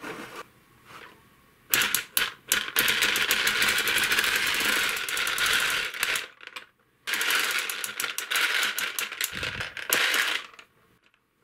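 Plastic rotating gumball lottery machine (garapon type) being cranked by hand: the balls clatter rapidly against the turning drum in two spells, with a short pause between, and a ball drops out into the tray.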